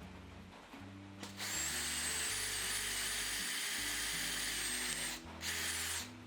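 Small electric power tool running in two bursts: a run of about four seconds with a high, steady whine, then a short burst of under a second near the end. Background music plays throughout.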